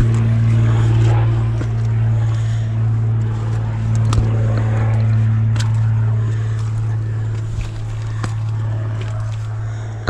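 A steady low droning hum, engine-like and unchanging in pitch, under the footsteps and scuffs of a hiker on granite, with a few sharp knocks of boots or hands against rock.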